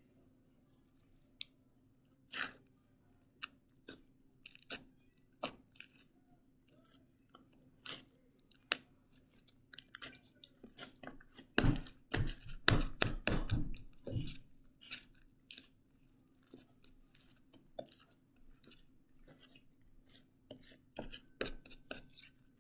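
Red glitter slime being worked by hand: irregular sticky clicks and pops, with a louder, busier run of squishing about halfway through.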